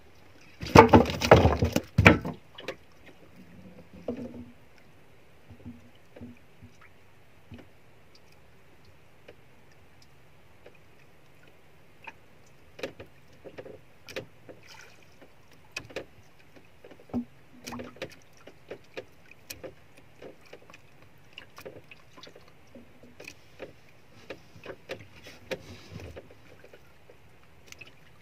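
Handling noise of a freshly landed coral grouper and its jig tackle in a wooden outrigger boat: a loud burst of knocking and rustling about a second in, then scattered light clicks and taps.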